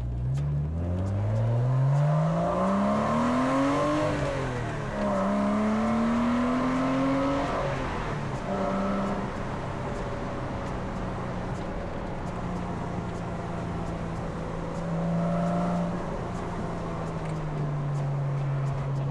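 Porsche Boxster 986's flat-six engine accelerating hard, its pitch climbing through the revs with two upshifts, about four and eight seconds in, then settling to a steady cruise.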